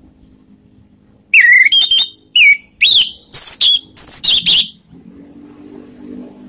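Orange-headed thrush (anis merah) singing a quick string of loud, varied whistled notes, several sliding up or down in pitch, for about three seconds starting a little over a second in. From about five seconds in, a low droning hum comes up underneath.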